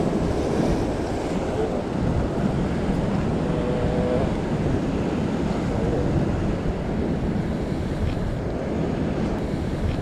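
Ocean swell washing and breaking against a rock ledge, with wind blowing over the microphone.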